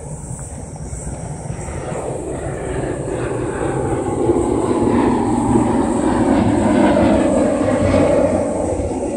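A steady low rumbling drone that grows louder over the first few seconds, holds at its loudest through the second half, and eases a little near the end.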